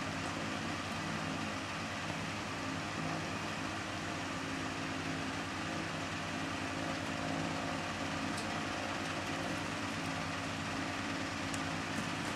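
Steady low hum with an even hiss underneath, unchanging throughout: room background noise.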